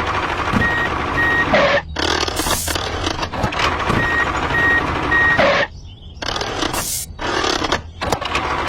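Vehicle reversing alarm sounding two runs of short, steady, high beeps over engine and machinery noise, which cuts in and out abruptly several times.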